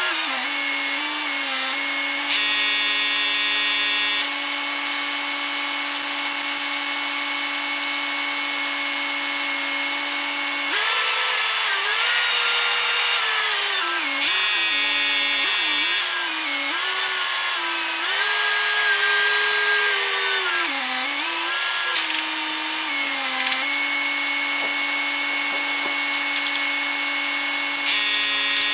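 Truck-mounted crane's engine and hydraulic pump whining steadily while lifting roof trusses. The pitch holds level for about ten seconds, then dips and rises repeatedly as the lift is worked, and settles again near the end. A rougher buzzing layer joins in briefly three times.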